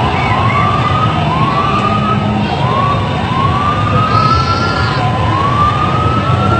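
Dense street-celebration din of a large crowd and traffic, over which a siren-like tone rises again and again, about once a second.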